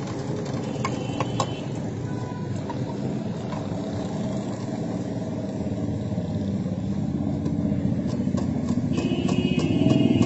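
Steady low rumble of street traffic with an engine running nearby. Near the end a quick, even run of ticks with a high tone joins in.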